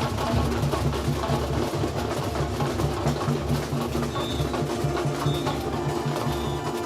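Samba school bateria (drum section) playing a fast, driving samba beat on surdos and other percussion, with a few short high whistle notes.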